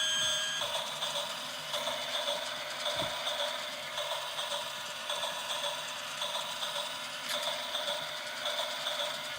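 Battery-powered toy train's small motor and gears running, with a steady whir and regular light clicking, a few clicks a second. A steady electronic tone cuts off just after the start.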